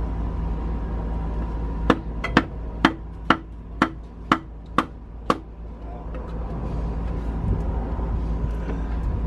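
Eight sharp hammer blows on the International DT466E diesel engine, about two a second, then stopping, over a steady low hum.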